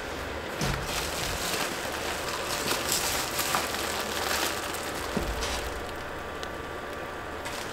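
Bathroom ceiling exhaust fan running with a steady hum while its foil flexible duct is handled, the foil crinkling and rustling in short bursts several times.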